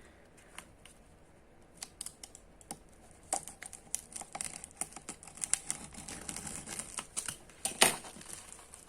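Box cutter slicing open a cardboard shipping box: irregular clicks and scratching of the blade through packing tape and cardboard, sparse at first, then a busy run of cutting from about three seconds in, with one sharper click near the end.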